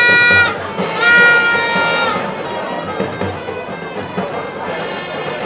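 A horn blown in two long, steady blasts at one pitch, the first ending about half a second in and the second lasting about a second, over crowd noise and music from the stands.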